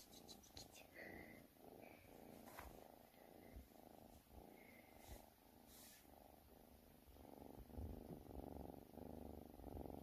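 A cat purring, faint and rhythmic, with a few soft clicks.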